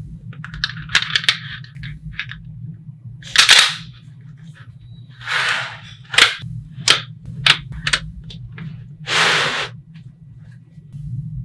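Small magnetic balls clicking and snapping together in a scatter of sharp clicks, with three longer, noisier bursts (early, near the middle and near the end) as clusters of balls come together at once. A steady low hum runs underneath.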